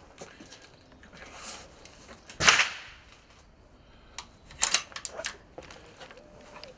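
Steyr Mannlicher bolt-action rifle being handled and its bolt worked: a sliding rasp, one loud sharp clack about two and a half seconds in, then a quick run of metallic clicks around five seconds in.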